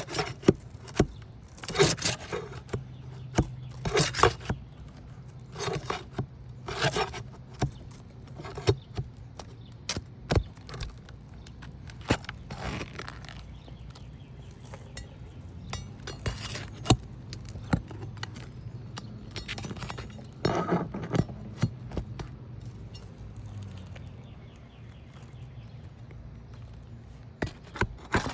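Metal tool scraping and clinking against asphalt shingles as roofing nails are worked loose and pulled, in irregular taps and short scrapes.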